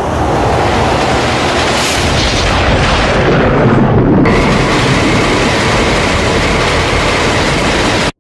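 Teaser sound design: a loud, continuous rushing rumble of a roller coaster train racing along steel track. A steady high tone joins about halfway through, and it all cuts off suddenly just before the end.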